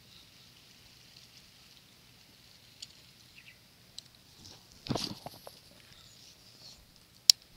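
Fishing rod and baitcasting reel being handled: a short rustle about five seconds in and one sharp click near the end, over a faint outdoor background with small ticks.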